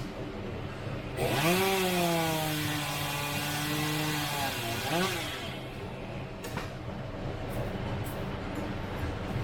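Chainsaw revved up about a second in, held at high speed for about three seconds, then let back down near the middle, with steady engine noise underneath.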